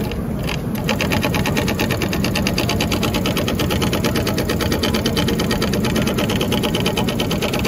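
JUKI PLK-J computerized pattern sewing machine stitching two layers of heavy nylon webbing, its needle running at a rapid, even rhythm that picks up about a second in. A steady low hum lies underneath.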